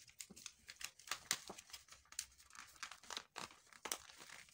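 Sheet of pattern-drafting paper crinkling as it is folded and pressed by hand: a run of irregular crackles.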